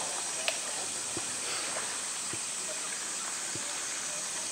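Steady hissing background noise with a few faint low knocks and one sharp click about half a second in.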